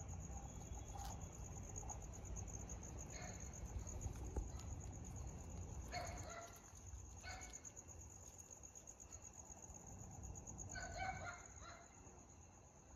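Crickets chirring steadily, with about four short, high calls from an animal scattered through.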